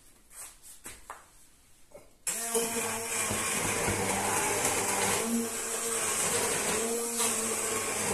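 Hand-held stick blender handled with a couple of light knocks, then switched on about two seconds in and running steadily as it purées a pot of cooked fruit, onion and vinegar into sauce, its pitch dipping and lifting briefly as it works through the mixture.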